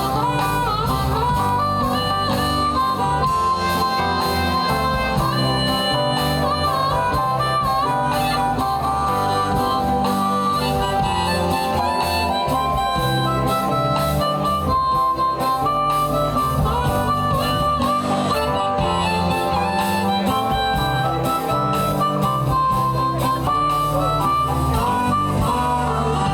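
Live band playing an instrumental break, a harmonica taking a bending solo over guitar, bass and drums.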